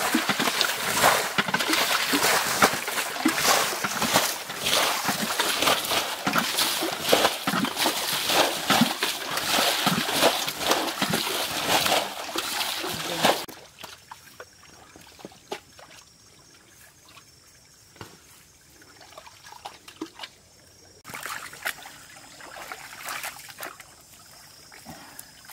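Splashing and sloshing of shallow muddy water as people wade and grope by hand for fish, dense and loud at first. About halfway it drops suddenly to scattered quieter splashes, then picks up again a few seconds before the end.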